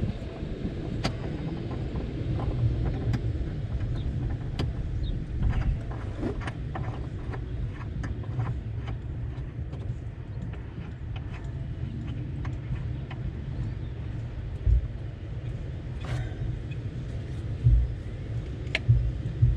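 Light, scattered clicks and knocks of hand tools and hardware being handled during hinge work on a Jeep door, over a steady low rumble.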